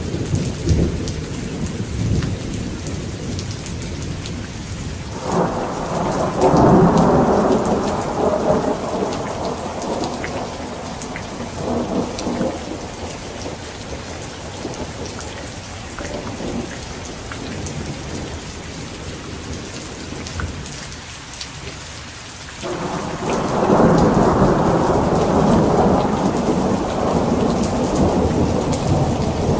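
Steady rain with rolling thunder. A long rumble swells about five seconds in and slowly fades, and a second one builds about twenty-three seconds in and keeps going.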